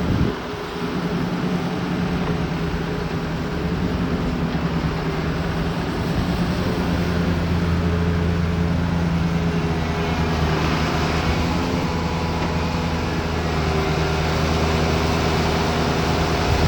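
Diesel engines of heavy earthmoving machinery running steadily. A deeper engine note comes in about seven seconds in.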